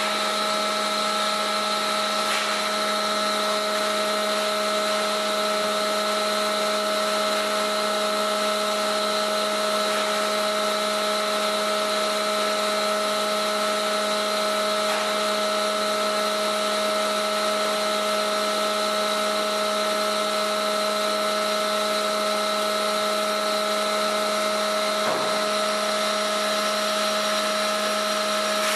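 Welding equipment running: a steady electrical hum with several fixed tones over an even hiss, unchanging in level.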